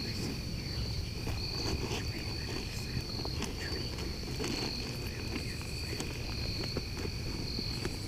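Crickets chirping in a steady high trill that swells and fades about once a second, with a fainter, lower trill beneath it.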